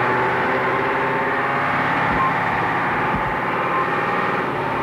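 Shelvoke and Drewry fire engine's engine running steadily as the pump drives along, heard from inside the cab.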